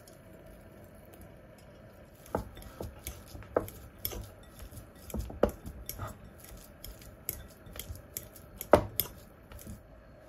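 Metal fork clinking and scraping against a glass bowl while mashing chopped hard-boiled egg: an irregular string of sharp taps that starts about two seconds in, the loudest one near the end.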